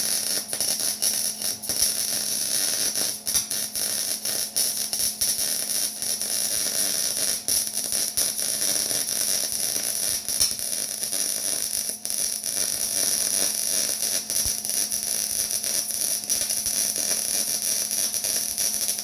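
Continuous metalworking noise on steel: a steady hiss full of crackle with a high steady tone, cutting off abruptly at the end.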